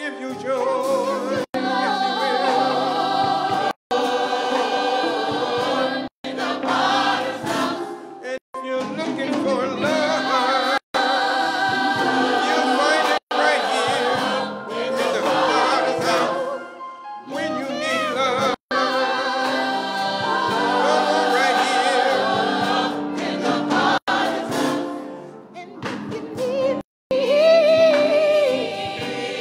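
Church choir singing gospel, the voices sustained and full. The sound drops out completely for an instant every two or three seconds.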